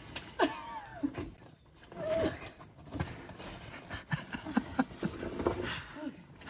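A person grunting and breathing hard with effort while squeezing through a narrow rock crevice, with short strained vocal sounds and a few small knocks and scrapes.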